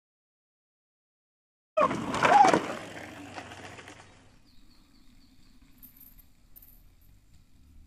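A mountain bike's tyres rolling over a slatted wooden wall ride: a loud rattling rush with a brief tone that rises and falls. It starts abruptly about two seconds in and fades out by about four seconds, leaving only a faint low rumble.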